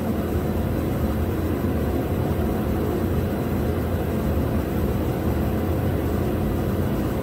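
Steady low droning background noise from a running machine, even throughout with no clicks or changes.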